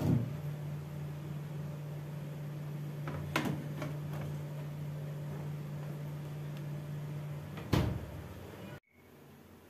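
Refrigerator door pulled open with a knock, a steady low hum while it stands open, a click as a steel container is set on a shelf about three seconds in, and the door thumping shut near the end.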